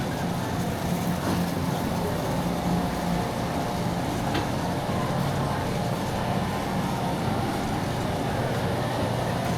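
Busy warehouse-store ambience: a steady rumble and hum, with the faint rattle of a rolling shopping cart, a few small clicks and distant voices.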